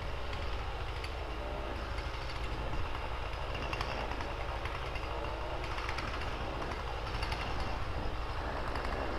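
An engine running steadily, heard as a low, evenly pulsing rumble with a hiss above it.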